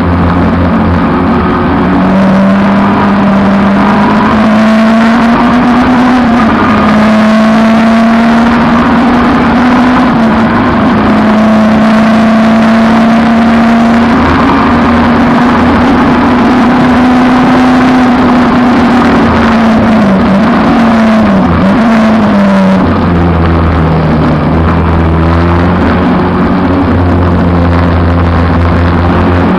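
Peugeot 306 race car's engine running hard at racing speed. The note holds high and fairly steady for most of the time, wavers and dips a few times about twenty seconds in, then settles to a lower note for the rest.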